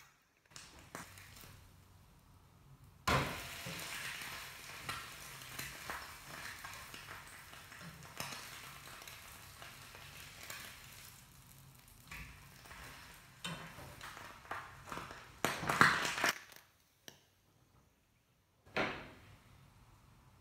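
An egg sizzling as it fries in oil in a non-stick frying pan, with a perforated spatula scraping and tapping against the pan as it slides under the egg. The sizzling starts abruptly about three seconds in; the loudest scraping comes about sixteen seconds in, then a short quiet gap and one more brief scrape.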